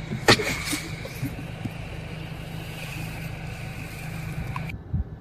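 Truck engine idling, heard from inside the cab as a steady low hum, with two sharp clicks at the start. A steady hiss over it cuts off suddenly near the end.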